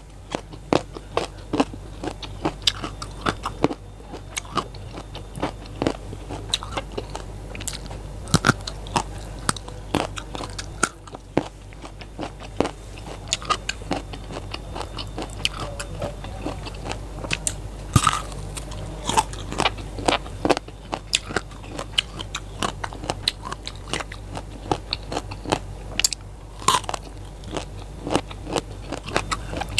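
Close-up crunching and chewing of raw vegetables: crisp bites and chews of raw lalapan such as papaya stem, leunca berries, eggplant and long beans, several sharp crunches a second with a few louder bites, over a steady low hum.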